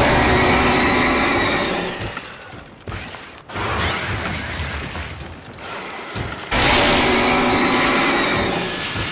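Fan-made kaiju roar sound effects. A long, loud roar opens, a quieter growl follows in the middle, and a second long roar starts about six and a half seconds in.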